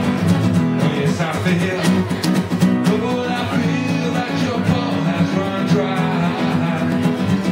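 A man singing live while strumming an acoustic guitar.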